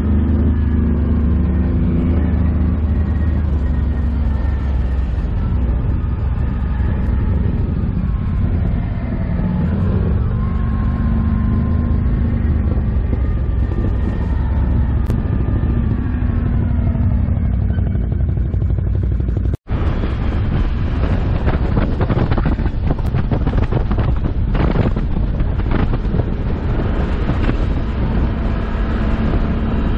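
Can-Am ATV engine running under way, its revs rising and falling as it rides a rough dirt track, with wind buffeting the microphone. The sound cuts out for an instant about two-thirds of the way through. After that come rattling jolts from the bumpy ground.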